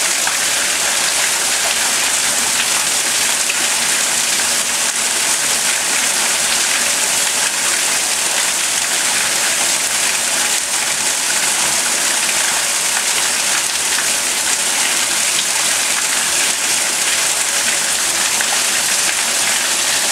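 Water pouring in through a broken basement window and splashing steadily onto the flooded floor, an unbroken rushing hiss.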